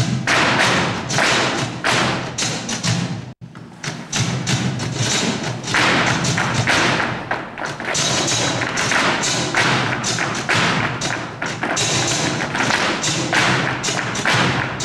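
Flamenco dancers' heel-and-toe footwork (zapateado) stamping and tapping rapidly on the stage, over flamenco music, heard through a camcorder microphone. The sound cuts out for an instant about three seconds in.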